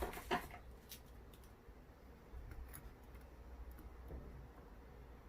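Faint, scattered light clicks and taps of tweezers and small lock parts being handled.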